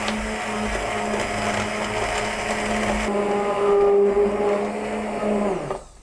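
Hand-held immersion blender puréeing cooked pumpkin in its cooking liquid: a steady motor hum over churning soup that winds down and stops just before the end.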